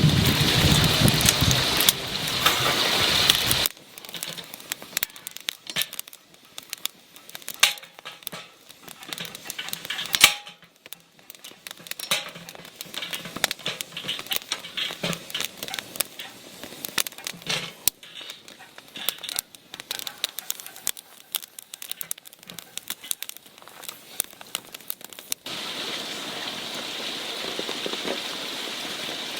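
Wood fire crackling in a camp fire pit, with scattered sharp snaps and pops, a few of them louder. A steady rushing noise fills the first few seconds, and a steady hiss takes over near the end.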